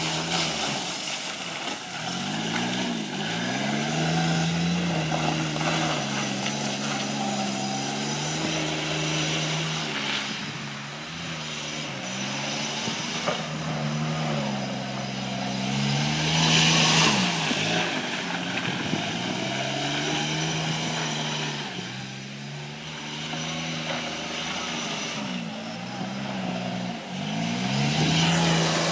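John Deere Gator utility vehicle's engine running as it drives in circles, its pitch rising and falling every few seconds as it speeds up and slows through the turns. It comes loudest as it passes close near the end.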